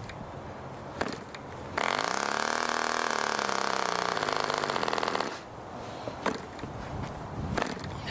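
Ohlsson & Rice 23 two-stroke spark-ignition model engine being hand-started by flicking the wooden prop. After a couple of sharp prop-flick clicks it fires about two seconds in and runs for about three and a half seconds, pitch climbing then sagging, before it dies; a few more flick clicks follow. This is a brief catch during first-start setup, with the needle valve and ignition timing not yet set.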